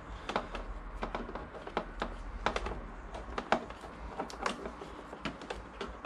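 Irregular small metallic clicks and ticks as a hex key is turned and reset in the screws that clamp a motorcycle's handlebar switch housing together.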